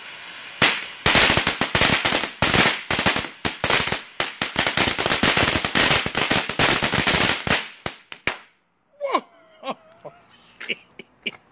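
TNT Frenzied Fireflies fountain firework: a steady spark hiss gives way, about half a second in, to a rapid, dense string of loud crackling pops. The crackling runs for about seven seconds and cuts off sharply about eight seconds in as the fountain burns out.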